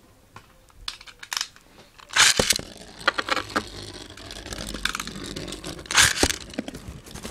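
Beyblade tops being readied and launched onto a sheet of paper: clicks and rustling, with two loud rasping zips about two seconds in and about six seconds in, typical of ripcord launchers being pulled.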